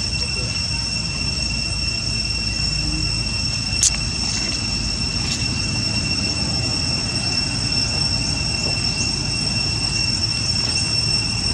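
Steady, unbroken high-pitched insect drone over a low background rumble, with one sharp click about four seconds in.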